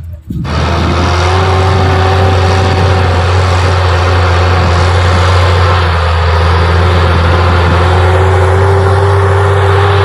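Case IH Puma tractor engine running steadily under load while pulling a disc harrow: a loud, even drone with a constant whine riding over it. It cuts in abruptly just after the start.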